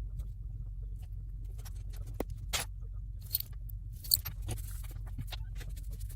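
Scattered small clicks and taps of tools and phone parts being handled during an iPhone X screen repair, the sharpest about four seconds in, over a steady low hum.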